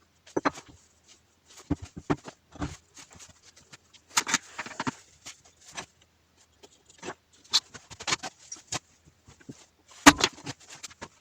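A series of irregular knocks and clatters, each short, in uneven clusters, with the sharpest knock about ten seconds in; no motor or grinder is running.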